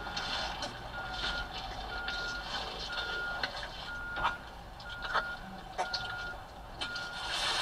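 Backup alarm on a backing tractor-trailer, beeping one steady high tone about once a second, with scattered sharp taps and the hiss of heavy rain underneath.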